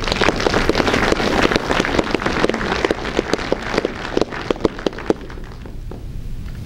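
Audience applauding: dense clapping at first that thins to scattered single claps and dies away about five seconds in.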